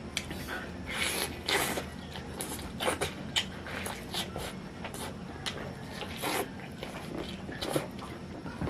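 A person chewing roasted chicken, with irregular wet clicks and smacks.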